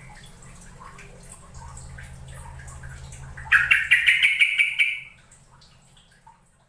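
Yellow-vented bulbul giving a burst of rapid chattering notes, about a second and a half long, starting about halfway in. A low steady hum runs underneath, and all sound fades away near the end.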